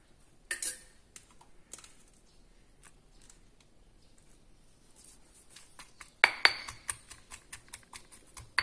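Kitchen handling sounds at a granite mortar and stainless steel dishes: light clicks as garlic cloves drop in, then about six seconds in a loud clink with a short ring, followed by a quick run of small knocks and a last sharp click.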